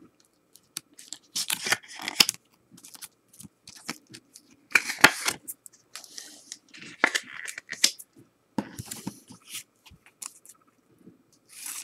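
Trading cards and a clear plastic card holder being handled: irregular bursts of scraping and rustling as cardboard slides against plastic and cardboard, the loudest about five seconds in.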